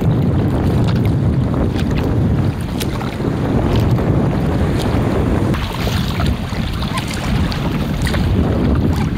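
Strong wind buffeting the microphone with a steady low rumble, over sea water splashing and lapping around a sea kayak.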